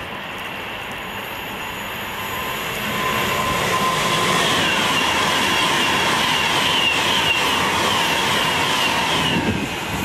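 Class 390 Pendolino electric express passing through at speed: wheel-on-rail and air noise build over the first few seconds, then a loud steady rush as the carriages go by, with a faint steady whine.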